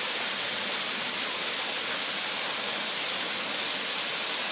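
Steady rush of falling water from a waterfall, an even noise with no breaks.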